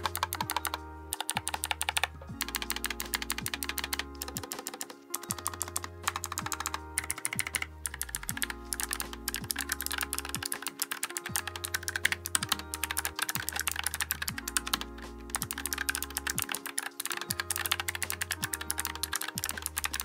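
Fast continuous typing on a NuPhy Air60 low-profile keyboard with clicky Gateron low-profile 2.0 blue switches, many sharp clicks a second. Background music with a steady bass line plays underneath.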